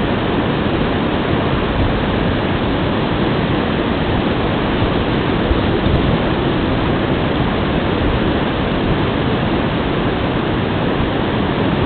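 Steady rush of a fast-flowing mountain stream, loud and unbroken.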